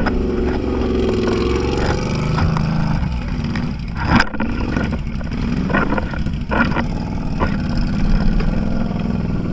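Off-road vehicle engine running steadily, its pitch rising and falling slightly, with several sharp knocks and rattles in the middle.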